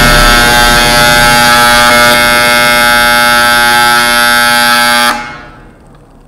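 Darkroom timer buzzer sounding, a loud steady electric buzz that cuts off about five seconds in and fades out: the set time has run out.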